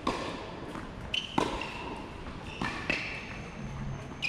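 Tennis ball struck by rackets and bouncing on a hard court during a rally: a few sharp pops roughly a second apart, ringing briefly under the covered hall's roof.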